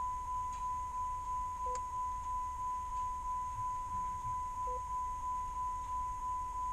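Car's electronic warning chime repeating rapidly, a single mid-pitched tone at about three beeps a second, each sharply struck and quickly fading. Faint clicks of the radio's buttons twice.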